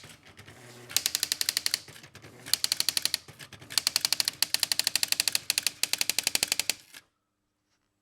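Brother CE50 electronic typewriter, converted to a daisy wheel printer, printing: the daisy wheel hammer strikes characters at about ten a second in three runs, with brief quieter carriage movement between lines, then stops abruptly about seven seconds in.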